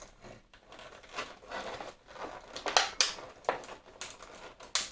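Irregular crinkling and small clicks of objects being handled, with a sharper click about three seconds in and another near the end.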